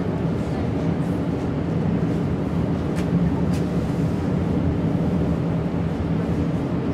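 S-Bahn electric train running, a steady rumble with a low hum.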